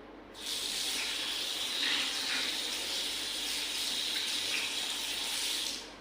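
Water running from a tap into a sink as hands are washed: it comes on about half a second in and cuts off near the end.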